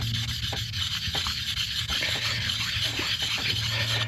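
Steady scrubbing on the metal gasket face of an outboard reed plate, clearing off leftover gasket material with a little tool oil.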